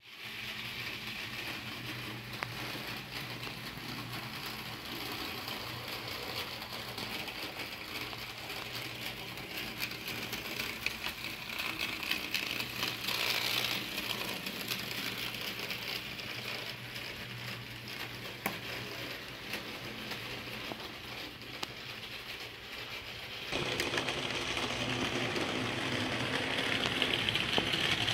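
Model train running on sectional track: the steady whir of the locomotive's motor and gearing with the light rattle of small wheels over the rails. It gets louder near the end as the train passes close by.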